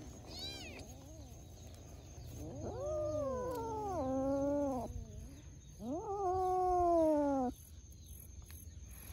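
Cats meowing: a short high kitten mew just after the start, then two long drawn-out meows, lower in pitch and each about two seconds long. The second is the loudest and cuts off sharply.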